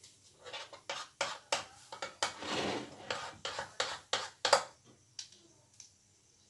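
Kitchen utensils and dishes clinking and knocking as they are handled: about a dozen sharp irregular clicks with a brief scraping sound among them, ending about four and a half seconds in.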